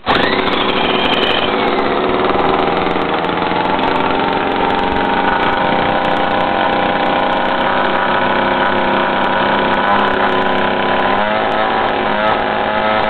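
A 45cc two-stroke engine, spun up with an electric drill as its starter, comes on with a quick rise in pitch and runs steadily on hydrogen drawn from a water-electrolysis cell. Its speed wavers near the end.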